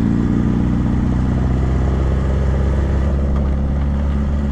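Sport motorcycle engine running steadily at low revs as the bike rolls slowly along under light throttle, heard from the rider's seat.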